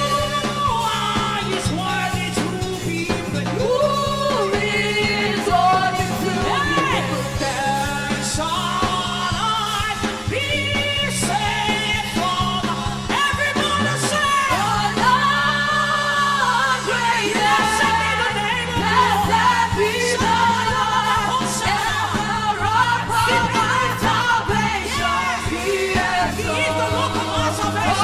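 Gospel worship song: a woman sings the lead over instrumental accompaniment, with held bass notes that shift every second or two.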